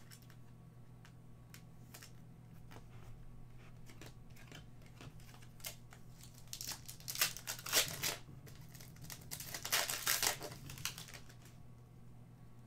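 Foil trading-card pack wrapper being torn open and crinkled by hand, in two bursts of crackling in the second half, with light clicks of card handling before them. A steady low electrical hum runs underneath.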